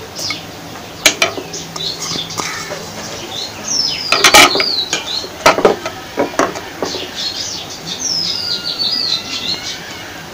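Wooden spatula knocking and scraping against a nonstick frying pan while stirring sliced onion and garlic in hot oil, with a few sharp knocks, loudest about four seconds in. A bird chirps in the background with descending whistled calls, about four seconds in and again near the end.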